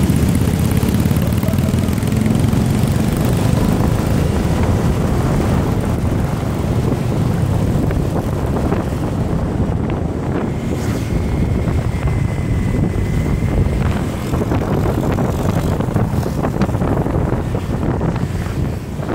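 Wind buffeting the microphone over the steady running of small motor scooters, heard from one scooter riding along in a pack of them. A faint thin whine comes in briefly around the middle.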